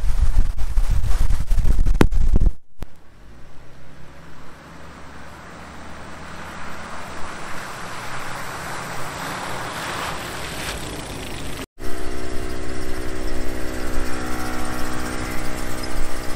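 Jeep Cherokee XJ driving on a dirt road: engine running under low road and wind rumble, in three clips joined by abrupt cuts about three seconds in and near twelve seconds. In the last few seconds there is a steady, even engine note.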